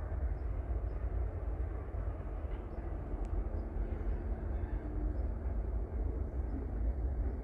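Distant rail yard at work: a low, steady rumble of diesel locomotives with no sharp impacts or squeals standing out.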